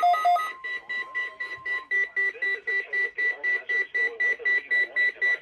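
Electronic alert receiver beeping rapidly, about four beeps a second, on a steady high tone, with a chattering undertone.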